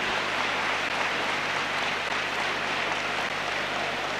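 Steady crowd noise of an ice hockey arena, a constant hubbub without distinct voices, heard through a worn VHS recording.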